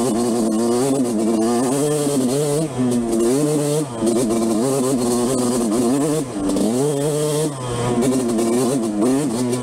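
Yamaha YZ125's two-stroke single-cylinder engine under way, revving up and dropping back several times as the throttle is worked, with wind rushing past the helmet microphone.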